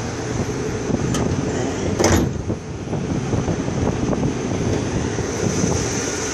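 1972 Chevrolet Caprice's rebuilt 400 small-block V8 idling steadily, with a light click about a second in and a sharper clunk about two seconds in as the hood is unlatched and raised.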